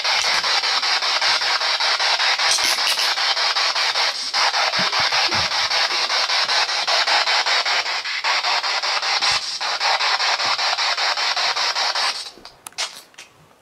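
Ghost box (spirit box) sweeping through radio stations: a steady rasping hiss of static, rapidly chopped, with a few brief gaps. It cuts off suddenly about twelve seconds in.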